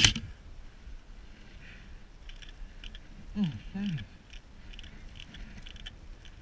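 The last shot of a short burst from an airsoft rifle right at the start, then faint rustling of grass and clothing as the prone player shifts. A little over three seconds in, a voice makes two short falling sounds.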